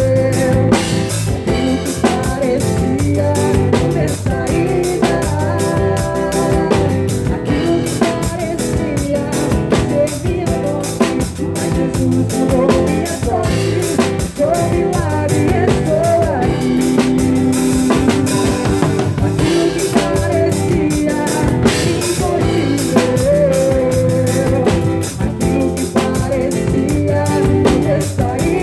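Live pagode band playing, with a drum kit keeping a busy beat under guitar and other pitched instruments.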